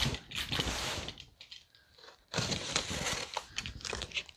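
Utility knife slicing through packing tape on a cardboard box, with scratchy, crinkling rasps of tape and cardboard. The cutting pauses for about a second in the middle, then starts again.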